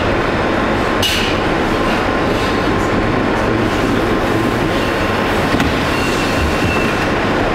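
Steady, loud rushing background noise of a commercial kitchen's ventilation and equipment, with one sharp click about a second in.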